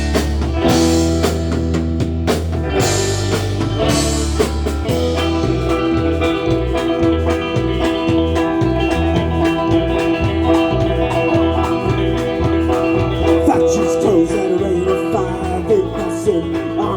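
Live folk band playing an instrumental intro with plucked strings over a bass beat. It opens with a few full-band chord hits, then settles into a steady rhythm under a long held note.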